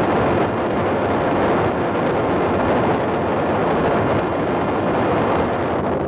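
Parrot Disco fixed-wing drone in fast, low flight: a steady rushing noise of its motor, propeller and airflow.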